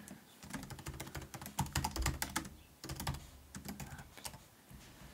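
Typing on a computer keyboard: quick runs of key clicks in two bursts with a short pause about halfway through.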